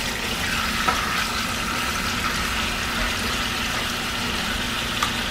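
Marinated boneless chicken thighs frying in hot oil in a skillet: a steady sizzle, with a light click or two.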